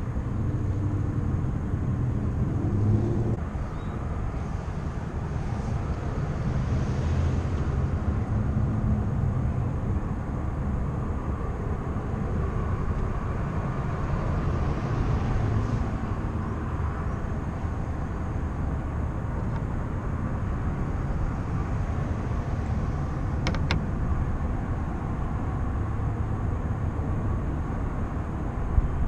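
Steady low outdoor rumble of background noise, with one sharp click late on.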